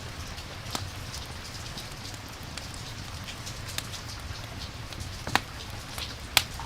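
Campfire crackling with scattered sharp pops, two louder ones near the end, over a steady hiss of rain and a low rumble.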